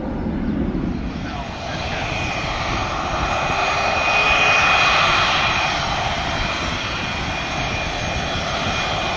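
Twin General Electric F404 turbofans of RCAF CF-188 Hornet fighters taxiing, a steady high jet whine over a rushing rumble that swells for a moment about halfway through. At the very start the low rumble of a departing Airbus A300 cargo jet fades out.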